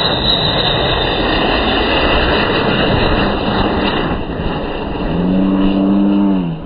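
Miniature jet turbine on an RC foam B-2 bomber model running at high power: a steady high whine over a rushing roar. Near the end a person lets out a long, drawn-out shout.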